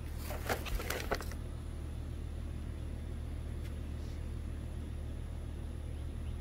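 A few quick crinkles and taps of packaging and snack wrappers being handled in the first second, then a steady low hum for the rest.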